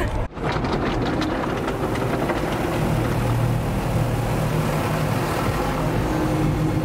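Automatic car wash heard from inside the car: a steady rushing spray of water and soap on the windshield and body, over a steady low machinery hum.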